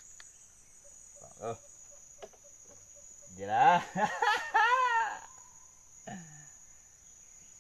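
Insects buzzing in a steady high-pitched drone. About three and a half seconds in, a loud wavering, pitched call lasts nearly two seconds.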